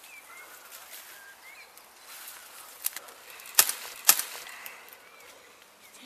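Faint bird chirps over a quiet steady hiss, with a few sharp clicks about three to four seconds in; the two loudest clicks come about half a second apart.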